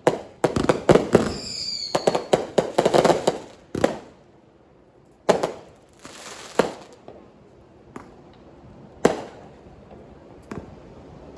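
Fireworks going off: a rapid string of sharp bangs and pops for about the first four seconds, with a brief whistle about two seconds in, then single bangs every second or two.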